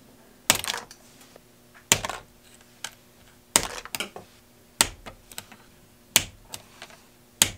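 Wire cutters snipping bare copper wire into short pieces: six sharp snaps about one and a half seconds apart, each followed by a few faint ticks.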